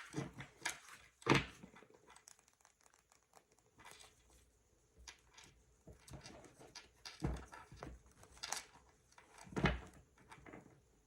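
Handling noises in a small room: scattered light clicks and rustles, with three louder thumps, one about a second in and two in the last few seconds.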